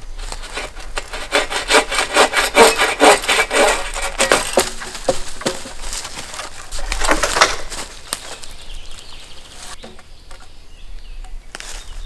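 Dead wood being sawn by hand with quick, regular back-and-forth strokes, a fast run in the first few seconds and another short burst midway, then lighter scraping.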